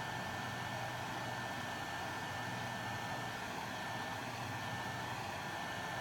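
Electric hot-air blower running steadily, a constant rush of air with a thin fan whine, warming the tablet's screen adhesive to loosen it.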